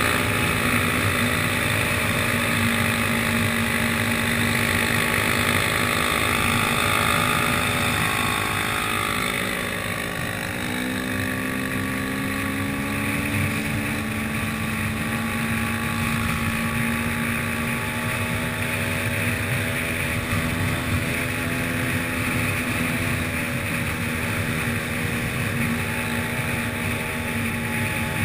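Enduro motorcycle engine running steadily under way. About ten seconds in the engine note drops and then holds at a lower, steady pitch.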